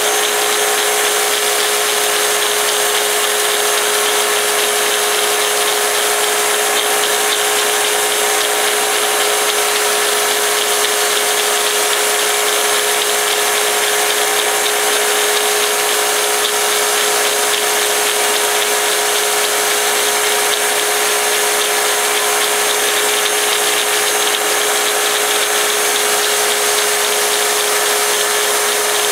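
Belt grinder running steadily with a constant hum while a large Bowie knife's edge is sharpened against the slack part of an 800-grit belt, the belt hissing against the steel.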